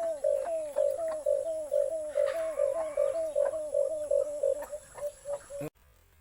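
White-eared brown dove calling: a rapid, even series of short, low, down-slurred coos, about four a second. The series cuts off abruptly near the end.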